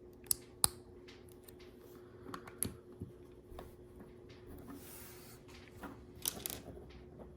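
Small plastic LEGO pieces clicking and tapping as they are handled and pressed together, in scattered sharp clicks with a soft rustle about five seconds in, over a faint steady hum.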